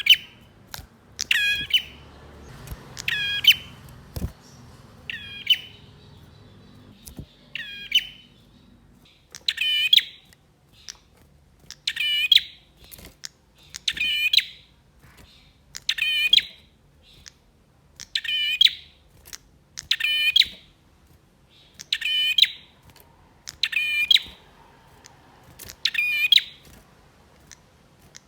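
Male prinia (prenjak) calling over and over: a short, sharp chattering call about every two seconds, coming a little faster near the start.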